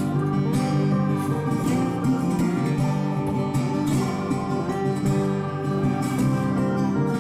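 Background music with plucked guitar, playing steadily.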